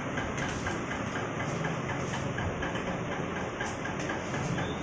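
A steady machine hum with a regular light ticking, about four or five ticks a second, and a few short rustles.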